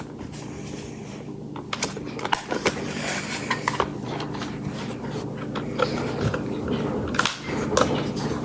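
Scattered clicks and knocks from a battered electric alarm clock being handled and fiddled with, thickening from about a second and a half in, over a steady low hum.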